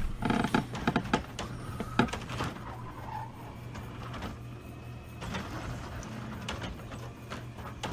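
Garbage truck's automated arm gripping and lifting a wheelie bin. Several clanks in the first couple of seconds, then a steady mechanical whir under the truck's running engine.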